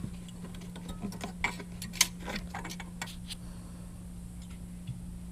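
Scattered light clicks and taps of a headlight bulb and its plastic housing parts being handled and fitted, the sharpest click about two seconds in, over a steady low hum.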